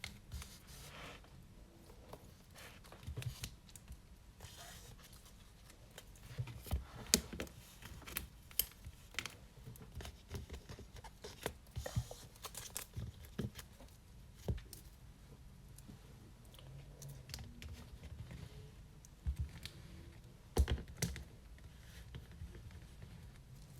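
Trading cards being handled, shuffled and set down on a table: scattered light taps and clicks with soft rustling, a few sharper slaps here and there.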